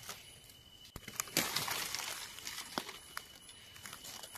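Dry forest leaf litter rustling and crunching, with a few sharp twig-like clicks; a denser stretch of crackling comes about a second and a half in.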